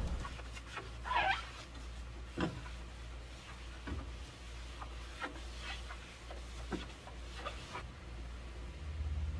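Scrub sponge rubbing over a gas stovetop around the burners, in short, irregular wiping strokes.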